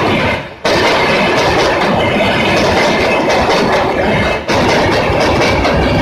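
Passenger coaches of the Mahabodhi Express passing close at speed: a loud, continuous rolling rumble of steel wheels on rail, with the cracking clatter of wheels over the track. The noise dips briefly just after the start and again about four and a half seconds in, coming back abruptly each time.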